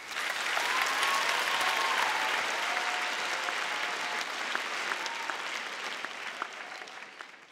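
Audience applauding at the end of a talk, the clapping dying away near the end, with a few faint calls over it in the first seconds.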